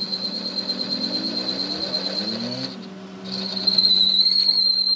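Metal lathe turning a large steel disc, its cutting tool against the face: a steady high-pitched whine over the hum of the machine. The whine drops out briefly about three seconds in, then comes back louder.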